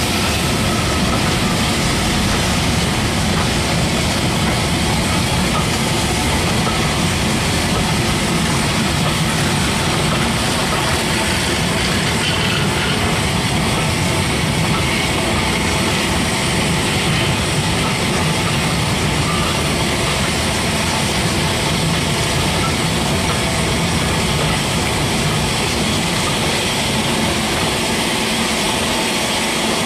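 Passenger coaches of a steam-hauled train rolling past at close range, including vintage wooden-bodied coaches and Pullman cars: a steady rumble of wheels on the rails, easing slightly at the low end near the end.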